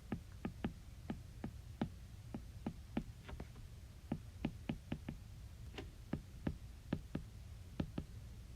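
A run of short, sharp clicks, irregularly spaced at about three a second, over a faint steady low hum.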